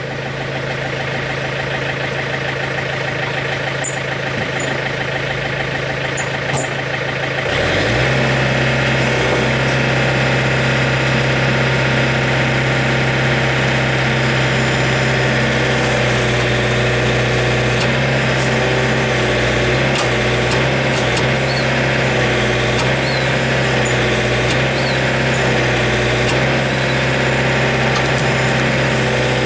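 John Deere 110 backhoe loader's diesel engine running steadily. About seven and a half seconds in it quickly revs up and holds at a louder, higher speed, the engine under load as the bucket is pressed down onto a tire to break it off the rim.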